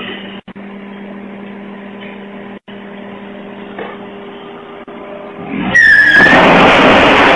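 Vehicle sound from several short road clips: a steady low engine hum, broken by brief cuts, then about five and a half seconds in a much louder, dense rushing noise that opens with a short high squeal.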